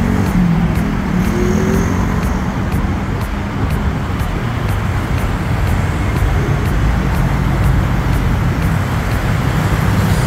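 City road traffic: a steady rush of cars and engines passing, with one vehicle's engine hum standing out in the first second or so.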